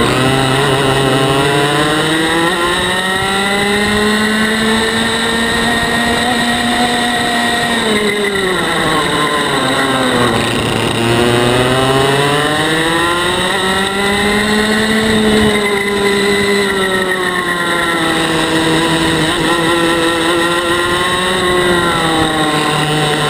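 IAME 125cc TaG two-stroke kart engine at race pace, heard onboard. Its revs climb in long pulls and fall sharply off the throttle for corners: the deepest drop comes about eight to ten seconds in, with shorter drops around sixteen and twenty-one seconds.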